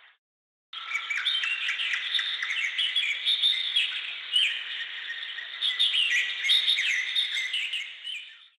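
Birds chirping and twittering: a dense run of many short, overlapping chirps that starts about three quarters of a second in after a brief silence and stops just before the end.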